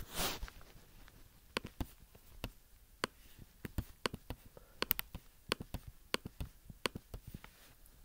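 Faint, irregular clicks of a computer mouse and keyboard, a couple of dozen sharp ticks spread unevenly over several seconds.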